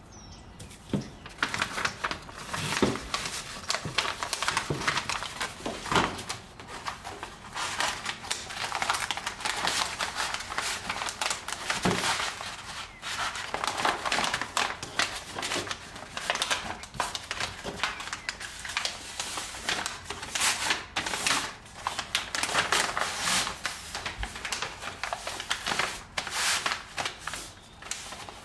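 Wrapping material crinkling and rustling as it is handled, with many small clicks and an occasional sharper knock.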